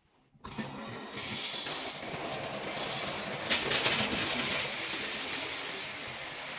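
Shower running after the handle is turned on: water comes on about half a second in and builds to a full, steady hissing spray about a second in, as the newly fitted Pfister cartridge is tested.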